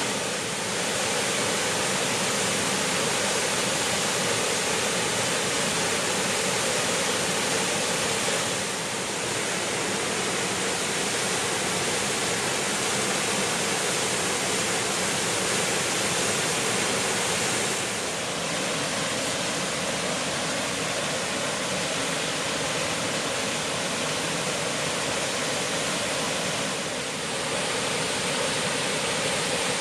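A waterfall rushing steadily, a dense, even roar of falling water, with short, slight dips in level about every nine seconds.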